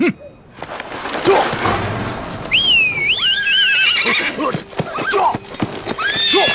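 A horse whinnies with a wavering pitch, starting about two and a half seconds in and lasting over a second, over a clatter of hooves; a second, shorter whinny comes near the end.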